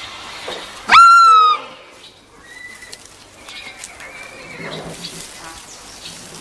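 An injured roe deer fawn gives one loud, high distress bleat about a second in, shooting up in pitch and then holding briefly before it trails off; a few faint, thin calls follow.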